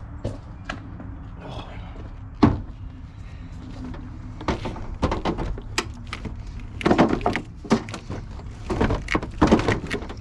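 Metal tools and battery hardware being handled, with a single sharp knock about two and a half seconds in, then bursts of clicks and clatter through the second half.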